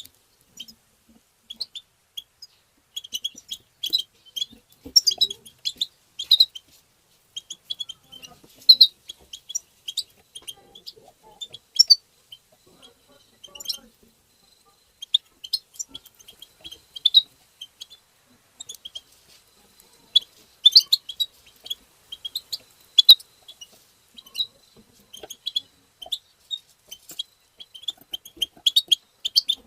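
European goldfinch song and chattering call notes: quick clusters of short, high twittering chirps coming in bursts with brief pauses between them.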